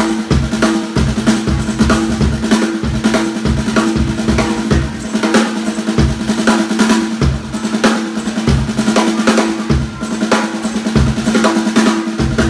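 Solo drum kit with amber acrylic shells: fast rolls and fills across snare and toms, with bass drum strokes underneath and a drum head ringing a steady pitch beneath the hits.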